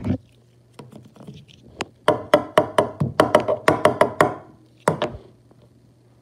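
A quick run of hollow knocks from a green hard-plastic object being banged, about six a second for two seconds. Two more knocks follow about a second later.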